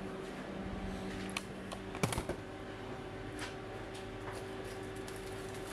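Scattered light clicks and taps of dishes and utensils being handled, a small cluster about two seconds in, over a steady low hum.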